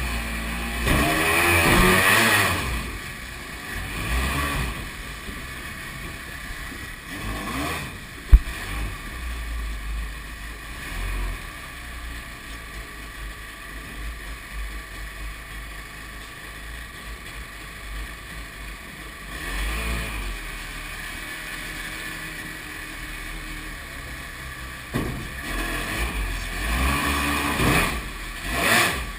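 Jet boat's Kawasaki 750 two-stroke jet-ski engine and jet unit running through rapids, revving hard at the start and again near the end, with a lower, steadier rumble and water rush in between. A single sharp knock about eight seconds in.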